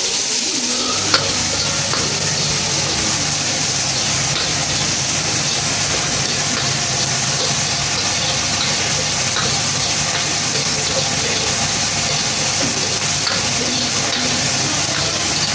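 Food sizzling in hot oil in a wok while a metal ladle stirs and scrapes it, with a sharp click about a second in. A low steady hum comes in at the same point and runs under the frying.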